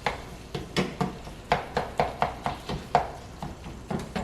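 A meat-masher tool chopping and breaking up browning ground beef in a pot: about a dozen sharp, uneven knocks against the pot.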